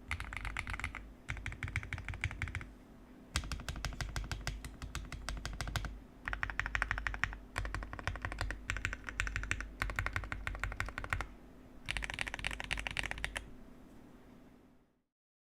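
Typing on an MCHOSE Z75S mechanical keyboard: fast runs of keystrokes in bursts of one to a few seconds with short pauses, the typing stopping about thirteen seconds in. A low hum underneath fades out near the end.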